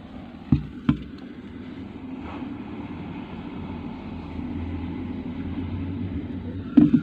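Beko BKY 2313 C washing machine running with a steady low hum that slowly grows louder, with two sharp knocks about half a second and a second in and another loud knock near the end. The title puts the noise down to a rusty drum bearing.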